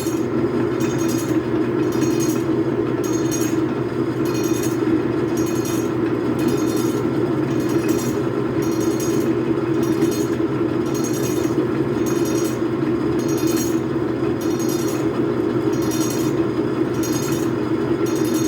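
Logan lathe running steadily, with the excess length of a long 1/4-inch rod flailing around inside the headstock spindle and clinking against it in a rhythmic clatter about twice a second.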